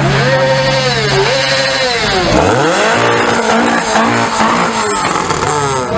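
Car engine being revved hard, its pitch rising and falling in repeated throttle blips, with a second sweep up from low about two seconds in.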